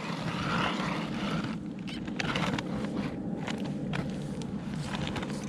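Ice auger boring a hole through lake ice: a steady grinding hum with scattered sharp crunches and clicks of ice.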